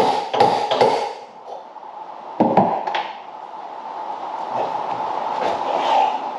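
Hammer blows on a seized steel door hinge pin as it is driven out: a quick run of ringing metal strikes in the first second, then two more a couple of seconds in, followed by a steadier scraping noise.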